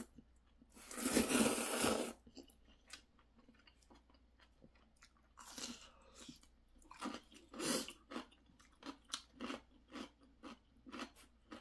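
A long slurp of ramyeon noodles about a second in, then a bite into kimchi near the middle followed by crunchy chewing, the crunches coming about twice a second.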